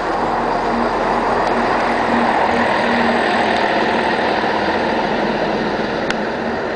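Regional diesel multiple-unit train running along the platform, a steady rumble of engine and wheels with a faint wavering hum that swells a little midway.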